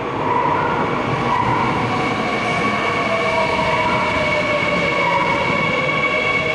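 Seoul Metro Line 3 subway train running into the station, slowing as it passes along the platform. Steady running noise carries several high whines, and one tone sinks slowly in pitch through the second half as the train loses speed.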